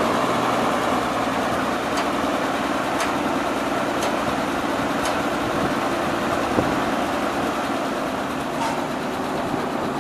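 Dodge WC62 6x6 truck's 230 cubic-inch flathead straight-six running steadily at low revs, freshly started and not yet up to temperature.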